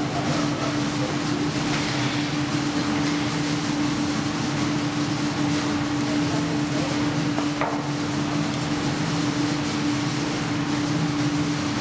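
Foundry machinery running: a steady roar with a constant low hum.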